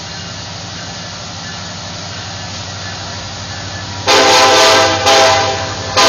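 Norfolk Southern SD70M-2 diesel locomotive approaching with a steady low engine drone, then its air horn sounds two long blasts starting about four seconds in, the second trailing off.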